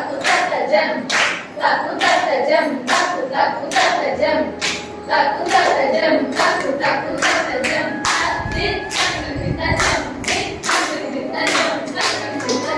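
A group of voices chanting Kuchipudi jathi syllables in unison while hands clap the rhythm, about two claps a second.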